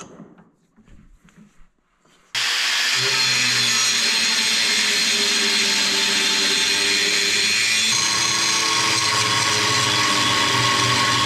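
A handheld power tool cutting into a snow-track bracket that rubs on the brake caliper. It starts abruptly about two seconds in and runs steadily under load, with a slight change in pitch about two-thirds of the way through.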